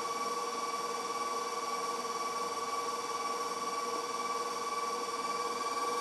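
Electric tilt-head stand mixer running at one steady speed, beating powdered-sugar frosting in its metal bowl: a steady motor whine.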